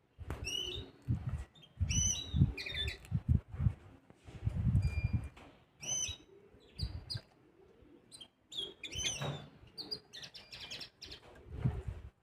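A mixto, a canary-cross hybrid finch, singing in short broken phrases of chirps and trills with pauses between them, mixed with low dull thuds.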